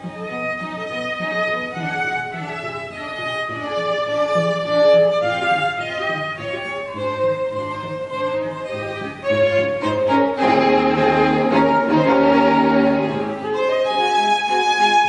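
String quartet of violins and cello playing classical music, with sustained bowed notes. About ten seconds in, the playing turns louder and fuller, with strong low notes, for around three seconds.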